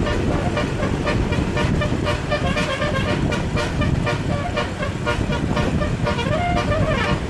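Tour bus's basuri telolet horn playing a fast, continuous run of changing notes, with a low rumble underneath.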